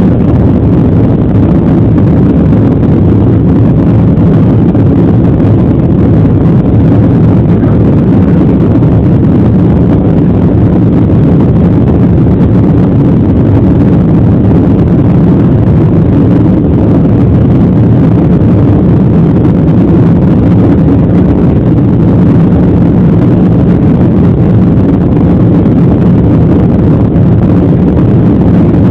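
Jet airliner's engines and rushing air heard from inside the passenger cabin during takeoff: a loud, steady low rumble that holds even throughout.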